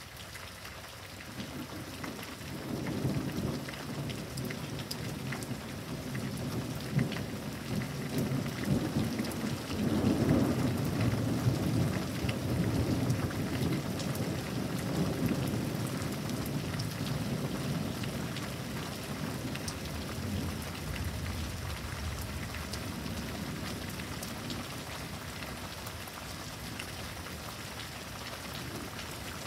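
Steady rain with a long roll of thunder that builds a couple of seconds in, is loudest near the middle, and slowly rumbles away.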